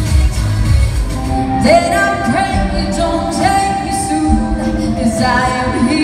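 Amplified pop music: a dance track with a heavy beat gives way about a second in to a woman singing with a live band.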